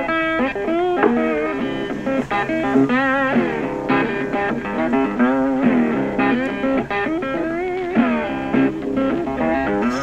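Background music: a guitar melody of many short notes, some of them bent or wavering in pitch.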